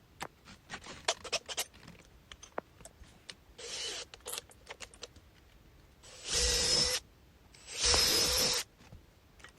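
Small clicks and knocks of tools and parts being handled, then two short runs of a power drill, each lasting about a second with a steady whine.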